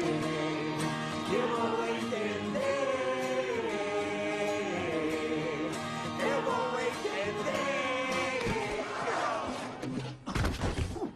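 Music: a man singing a slow melody with long held notes. Near the end it breaks off into a few heavy thuds as a man tumbles in onto the floor.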